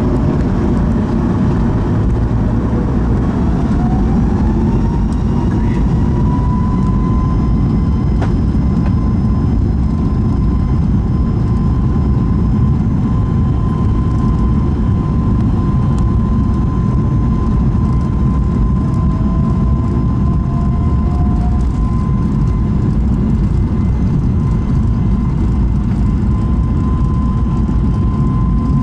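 Inside the cabin of a Boeing 737 MAX 8 on its takeoff run: the CFM LEAP-1B engines give a loud, steady rumble, and their whine climbs in pitch over a few seconds as they spool up to takeoff thrust, then holds steady.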